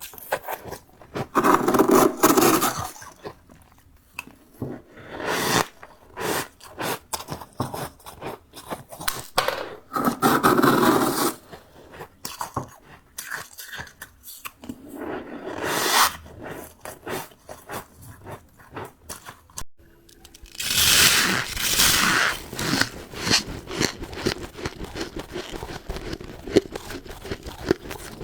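Freezer frost ('snow ice') crunching as it is bitten and chewed close to the microphone: loud crunches every few seconds, with smaller crackling crunches in between.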